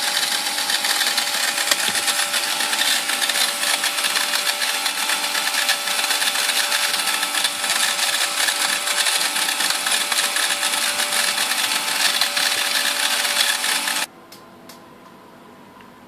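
Electric motor of a Raspberry Pi–controlled robot vacuum cleaner running steadily with a mechanical whir, then switching off abruptly about 14 seconds in, leaving a faint hum.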